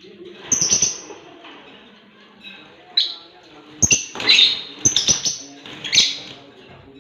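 Pet lovebird giving a series of short, sharp, high chirps close to the microphone, with knocks and rustles in between as it moves and pecks.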